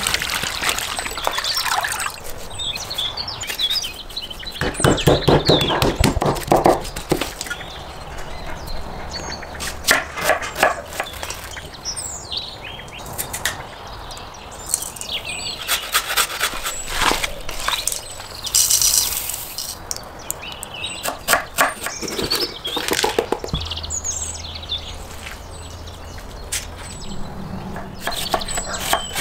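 Food being prepared by hand: irregular clicks and knocks of utensils and produce, with several bouts of rapid, even knocking, and birds chirping in the background.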